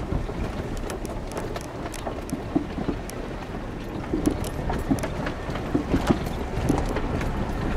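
4x4 truck camper rolling slowly over a rocky dirt track: a steady low rumble broken by irregular knocks and rattles as the tyres go over loose stones.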